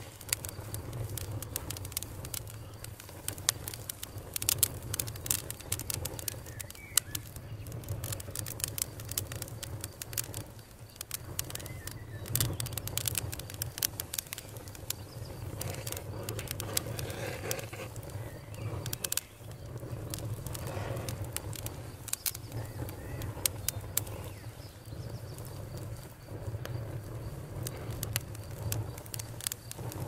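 Open wood fire crackling, with frequent irregular sharp pops and snaps over a steady low rumble.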